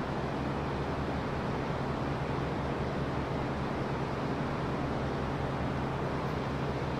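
Steady machine hum under an even hiss, unchanging throughout: a motor or ventilation running in the workshop.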